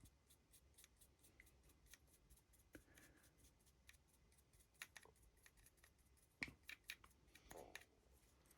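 Faint, quick scratching ticks of a stiff dry brush flicked across the raised edges of a painted 3D-printed model, several strokes a second, with a few louder strokes in the middle and near the end.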